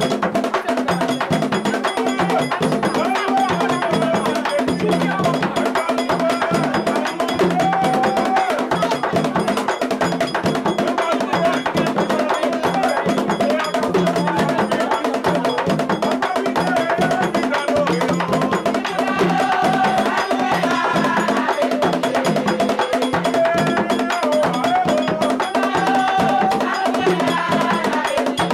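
Haitian Vodou ceremonial music for a Guede dance: a steady, fast percussion rhythm with a clanking metal part, and voices singing over it, most clearly in the last third.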